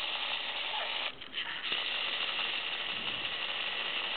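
Clockwork gears of a wind-up Tomy Thomas toy whirring as its wheels slip, a steady high hiss that dips briefly about a second in.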